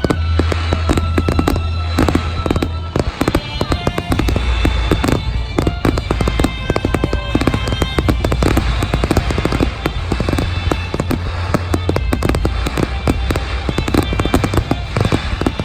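Fireworks display: a dense, rapid run of shell bursts and crackles, with music playing underneath.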